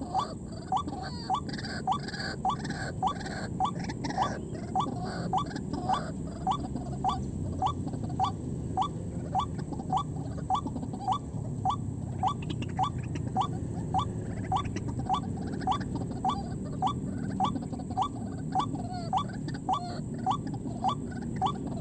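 White-breasted waterhen calls: a short rising note repeated in an even rhythm about twice a second. Over it runs a steady high-pitched insect-like whine.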